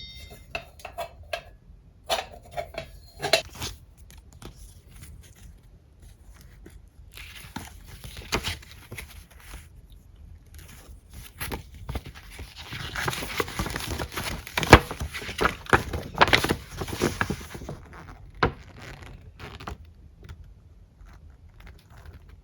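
Scattered small clicks and knocks with rustling, as of things being handled at home, thickest in the middle of the stretch.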